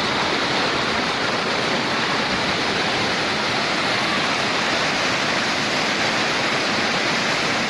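Waterfall pouring steadily: a constant rushing roar of falling water.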